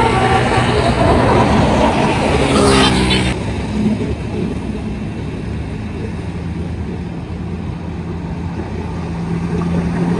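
Bus engine running and revving as a bus moves off, ending abruptly about three seconds in. A steady, lower engine drone follows and grows louder near the end.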